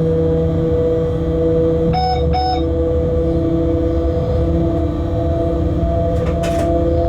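Inside a freight locomotive's cab: a steady low running rumble with a constant electrical hum of several tones. Two short beeps sound about two seconds in, and there is a brief rattle near the end.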